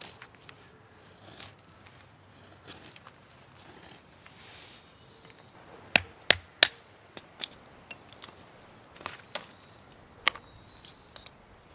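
Wooden baton knocking on wood to split kindling: three sharp knocks in quick succession about six seconds in, then a few lighter knocks. Before that, only faint small scraping clicks from a knife carving feather sticks.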